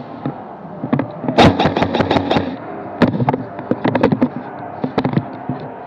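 Airsoft guns firing in bursts of rapid sharp snaps. The longest, loudest burst comes about a second and a half in, followed by single shots and shorter bursts.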